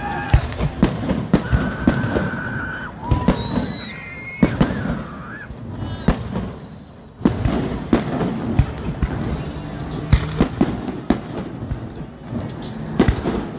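Aerial fireworks display: a rapid, irregular series of sharp bangs and crackling bursts.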